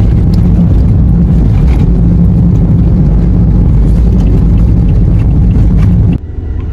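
Loud, steady low rumble of wind and road noise from a moving car, cutting off suddenly near the end.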